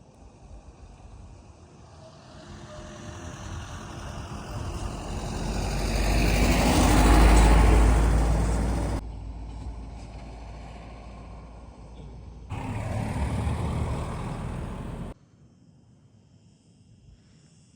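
A road vehicle passing close by, its noise building to a peak about seven seconds in and then dropping away; a second, shorter stretch of similar traffic noise follows and stops abruptly.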